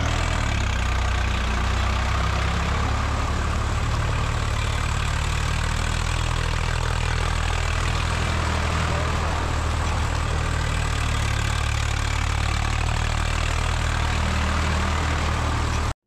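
Swaraj 855 tractor's diesel engine running steadily as it drives through deep mud, cutting off abruptly near the end.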